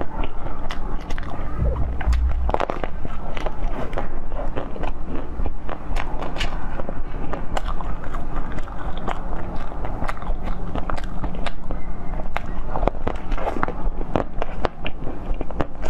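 Close-miked ASMR biting and chewing of a large green jelly dessert, full of crisp crackling clicks as pieces are bitten off and chewed. A low thud comes about two seconds in.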